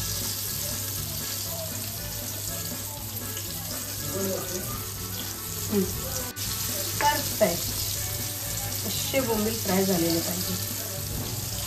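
Pieces of surmai (kingfish) and bombil (Bombay duck) sizzling steadily as they shallow-fry in oil on a tawa.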